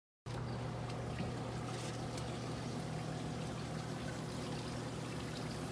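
Hot tub pump running with a steady low hum, with water trickling and churning; it begins abruptly just after the start.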